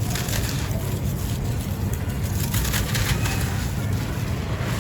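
Dry sand-cement crumbles crunching and crackling as they are crushed, in clusters of crisp crackles over a steady low rumble.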